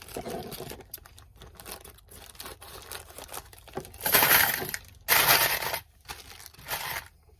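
Small plastic bags of metal keychain hardware being handled and set into a storage container: plastic crinkling with small metal clicks and clinks, and two louder rustles about four and five seconds in.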